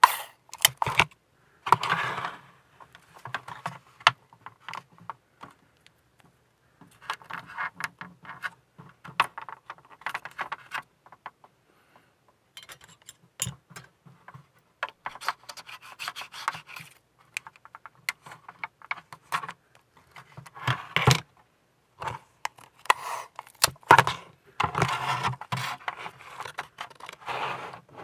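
Masking tape pulled and torn from a plastic tape dispenser and pressed onto plastic model hull parts, with the parts handled against each other: irregular rustles, scrapes and sharp clicks.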